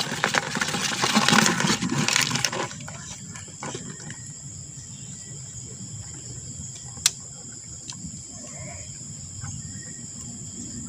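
Water splashing and sloshing for the first two and a half seconds, then a quieter steady wash of water with one sharp click about seven seconds in.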